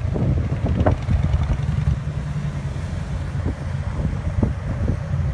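Touring motorcycle's engine rumbling low and steady as it rolls slowly past, with wind buffeting the microphone.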